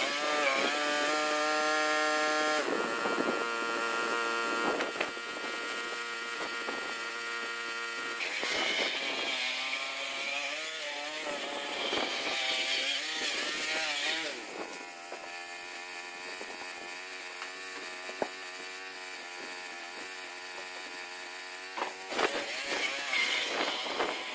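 A lawnmower motor running steadily, its pitch shifting a few times. It is louder for the first half and quieter after about 14 seconds, with a couple of sharp knocks near the end.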